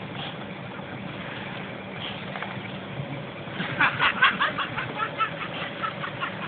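Scania truck's diesel engine running at low revs while it reverses with a drawbar trailer. About three and a half seconds in, a rapid series of sharp rattling pulses starts, several a second, and fades towards the end.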